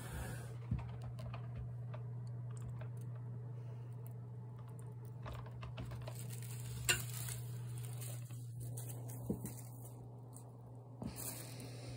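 Scattered light rustles and clicks of a cat pawing and nosing at crinkly honeycomb kraft packing paper, with a few sharper single clicks, over a steady low hum.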